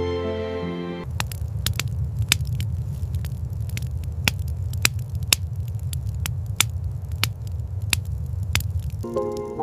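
Wood fire crackling, with irregular sharp pops over a low steady rumble. Soft background music fades out about a second in and comes back near the end.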